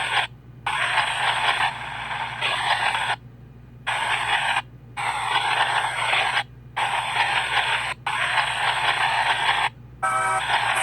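PXB 07 spirit box sweeping through radio stations: bursts of static and snatches of broadcast noise, each a second or two long, chopped off abruptly by short gaps of quieter hiss.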